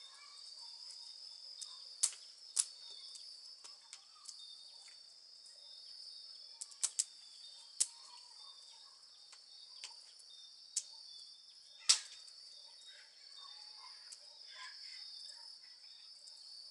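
Steady high-pitched insect chorus of crickets, with scattered sharp clicks of cutlery on plastic plates during eating, the loudest about twelve seconds in.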